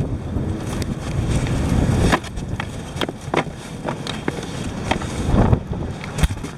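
A handful of sharp knocks and bumps from things being handled, over a low rumble of wind on the microphone.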